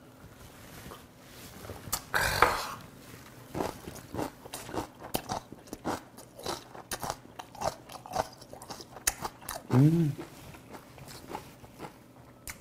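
Close-miked chewing of raw filefish sashimi: irregular wet clicks and crunches of the mouth, with a louder breathy burst about two seconds in and a short hummed "mm" about ten seconds in.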